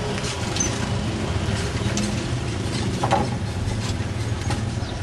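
An engine idling steadily with a low hum, overlaid by a few knocks and rattles, the loudest about three seconds in, as motorbikes are wheeled over a wooden plank onto a ferry deck.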